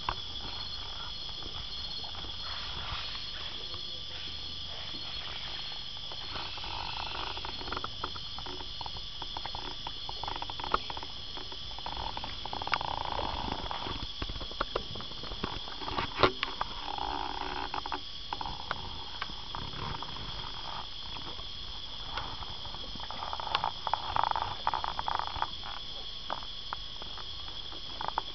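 Steady high-pitched chorus of rainforest insects, with a faster pulsing trill running over it. Now and then there is a sharp knock and a swell of watery swishing, as from oars in the water.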